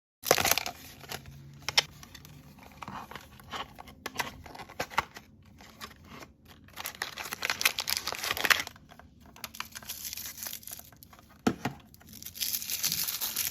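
Blind-bag packaging being torn open and crinkled by hand: an irregular run of crackles and rustles with a few sharper tears, busiest near the end.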